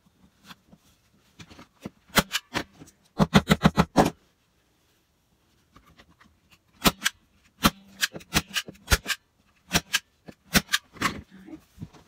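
Sharp clicks and knocks in irregular runs, with a quick burst of five or six about three seconds in, from hand work at a craft table.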